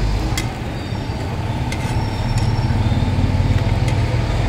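Steady low engine rumble with a few sharp clicks over it.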